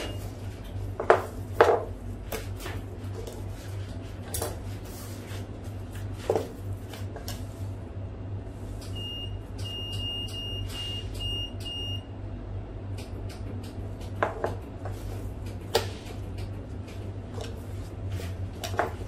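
Boning knife knocking and tapping on a plastic cutting board as a hanger steak is trimmed: a scatter of sharp knocks, the loudest two about a second in, over a steady low hum. Midway a run of about six short, high electronic beeps sounds for some three seconds.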